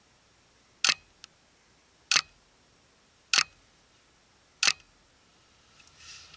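High-pressure-air (HPA) airsoft carbine firing four single shots, about one and a third seconds apart, each a short sharp pop, with a faint rustle near the end.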